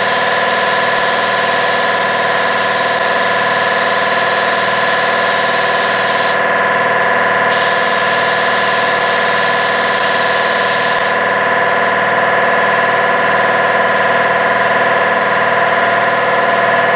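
Compressed-air hiss of a gravity-feed paint spray gun laying a light first coat on a plastic bumper cover. The hiss stops briefly about six seconds in, then resumes, and stops again about eleven seconds in as the trigger is released. A steady hum with several fixed tones runs underneath throughout.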